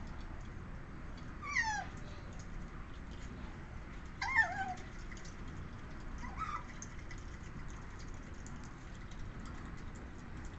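Asian small-clawed otters calling: three short, high calls about two and a half seconds apart, each falling and wavering in pitch. The second call is the loudest and the third is faint.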